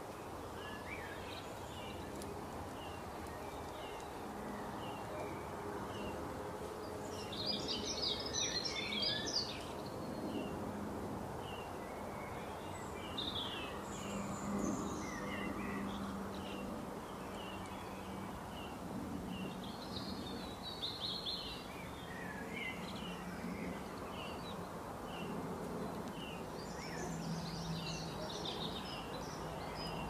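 Birds chirping: short high chirps repeated all through, with denser bursts of song four times. Underneath is a steady low background noise.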